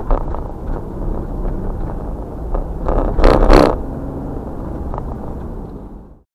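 Car's road noise heard from inside the cabin: a steady low tyre-and-engine rumble, with a brief louder rushing swell a little past three seconds in. It fades out just before the end.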